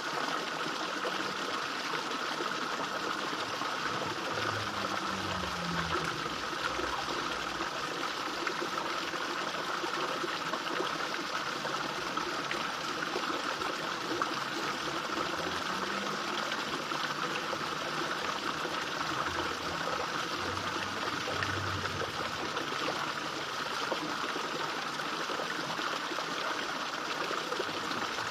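Small fish pond waterfall, water splashing and trickling steadily into the pond without a break. A faint low drone rises and falls twice underneath it.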